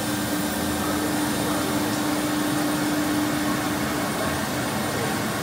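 MultiCam MG series CNC router running, its head moving over the sheet: a steady rushing machine noise with a steady hum that stops about four seconds in.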